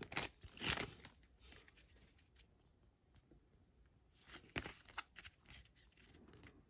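Foil trading-card pack wrapper crinkling as the stack of hockey cards is slid out of it, then a few light clicks and flicks of the cards being flipped through about four seconds in.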